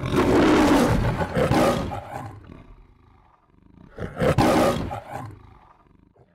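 The MGM logo lion roaring twice: a long roar, then a shorter second roar about four seconds in.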